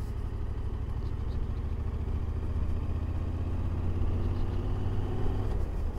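Yamaha Ténéré 700's parallel-twin engine running at low road speed. Its note rises gently from about halfway through as the bike picks up speed.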